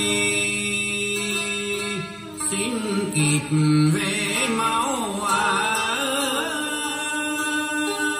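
Song with a male voice singing with vibrato over instrumental accompaniment, played back through a pair of Bose 6.2 bookshelf speakers.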